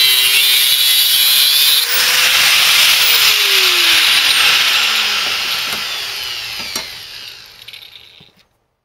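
Angle grinder with a cutting disc slicing through thin sheet metal, a loud harsh hiss. About three seconds in the load comes off and the grinder winds down with a steadily falling whine, fading out shortly before the end.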